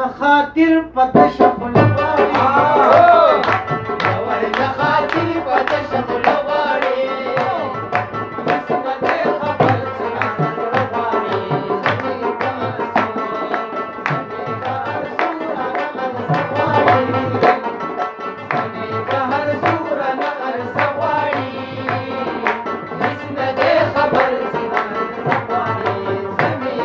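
Pashtun rabab plucked rapidly, playing a Pashto song melody, with hand-played tabla keeping a steady rhythm under it.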